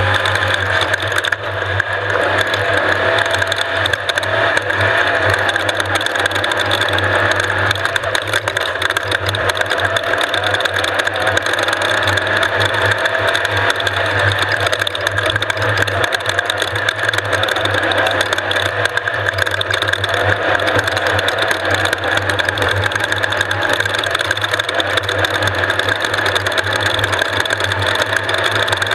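Off-road race vehicle's engine running steadily, with a constant rattle.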